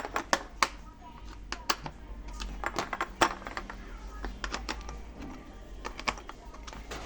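Irregular clicks and light knocks of a Phillips screwdriver and screws against the washing machine's plastic parts as the remaining screws are tightened, over a steady low hum.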